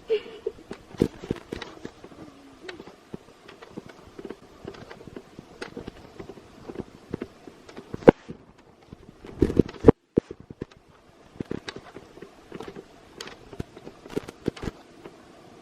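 Footsteps in snow, a run of short irregular steps, with a sharper knock about eight seconds in and a louder flurry of thumps around nine and a half seconds that briefly cuts out.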